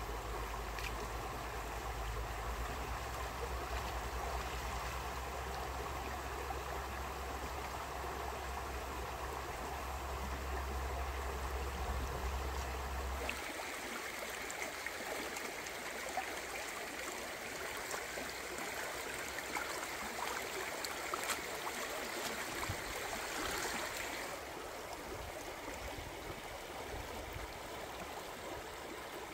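Shallow stream running over rocks, a steady rush of water whose tone shifts twice, about halfway through and again near the end. A low rumble sits under it for the first half and stops about halfway.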